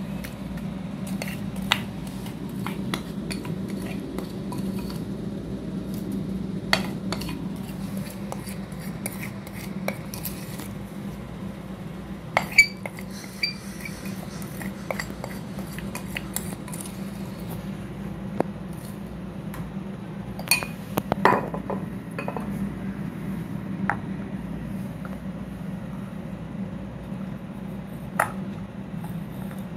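Silicone spatula scraping wet slate pencil paste around a glass bowl, with scattered sharp clinks and knocks against the glass; the loudest cluster of knocks comes about two-thirds of the way through. A steady low hum sits underneath.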